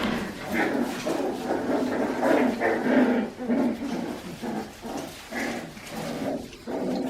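Four-and-a-half-week-old Australian Shepherd puppies vocalizing in a quick run of short, repeated yips and whimpers, a few a second.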